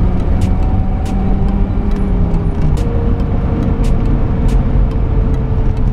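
In-cabin sound of a 1989 Lotus Esprit Turbo on the move: a steady engine note over road rumble. The engine note changes pitch about halfway through, and scattered sharp clicks come and go.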